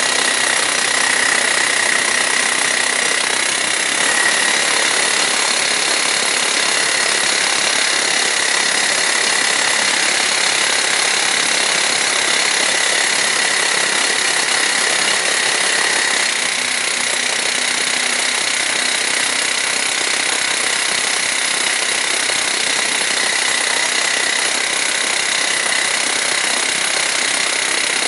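Handheld hydraulic rock drill hammering continuously into a reinforced concrete wall: a loud, steady hammering with a high ringing note over it. It eases slightly about sixteen seconds in.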